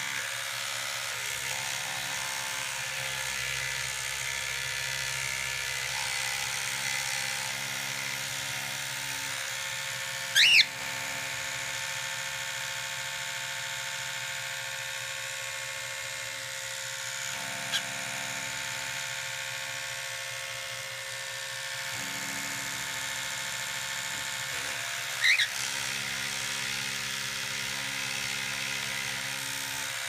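Electric toothbrush buzzing steadily, held near a cockatiel, which answers twice with a short rising chirp.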